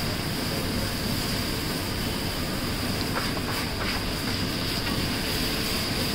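Wide metal spatula chopping and scraping egg mixture on a large flat griddle, with a few sharp taps about three seconds in, over a steady sizzling hiss from the hot griddle.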